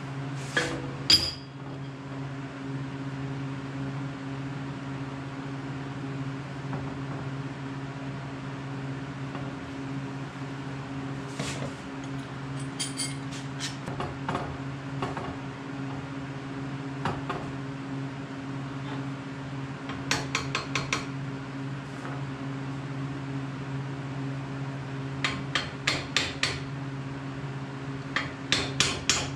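Steel parts and a clamp clinking and tapping against a steel frame as they are set in place. The sounds come in short clusters of quick metallic clicks, several times over, above a steady low hum.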